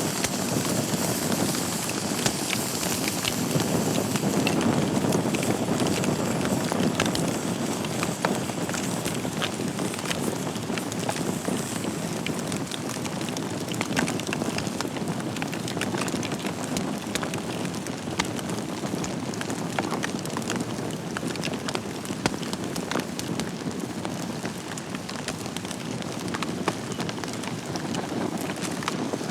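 Wood fire burning in a fireplace: a steady low rushing of the flames with frequent small crackles and pops from the burning logs.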